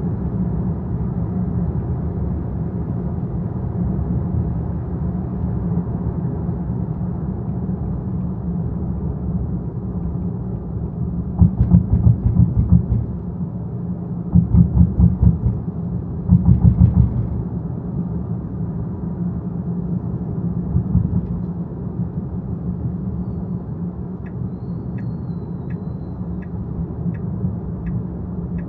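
Steady low rumble of a car driving, from its tyres and engine. In the middle come three short stretches of louder, pulsing rumble, and near the end an even light ticking about twice a second.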